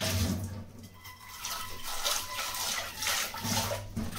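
Kitchen tap running into a stainless-steel sink while utensils are rinsed under it, the water splashing unevenly.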